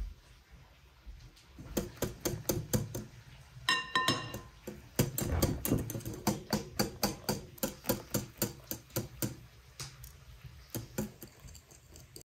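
Wire whisk beating eggs in a glass bowl, its wires clicking against the glass about five times a second. About four seconds in there is a short ringing clink of metal on glass, and the strokes slow and fade near the end.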